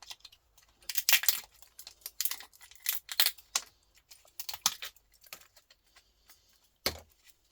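Irregular clicking, clinking and scraping of hand tools and small metal parts as components are pried and pulled off electronic scrap, with a firmer knock near the end.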